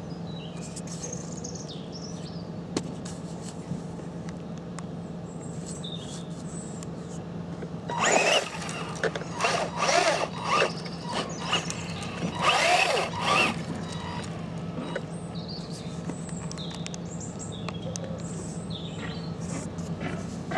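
Tamiya Frog RC buggy with a 19-turn Etronix brushed electric motor driving past. Its motor whines, rising and falling in pitch in several loud surges in the middle, with gritty tyre noise.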